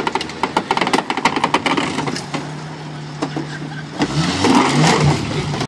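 Lifted Jeep CJ-8 Scrambler's engine running as the Jeep crushes a sedan, with a rapid run of sharp cracks and crunches in the first two seconds as the car's body gives way. The engine then holds a steady note and revs up with a rising pitch about four seconds in, as the Jeep drives down off the car.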